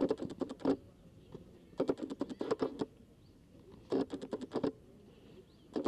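Taekwondo sparring: quick flurries of slaps and thuds from bare feet on the foam mats and kicks landing on the chest protectors, coming in short bursts about every two seconds.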